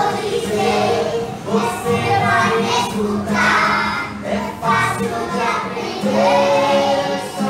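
A group of young children singing together, accompanied by acoustic guitar chords.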